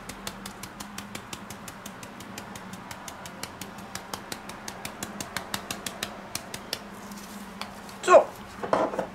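Pepper mill being turned, a rapid, even clicking of about five or six clicks a second that stops shortly before the end.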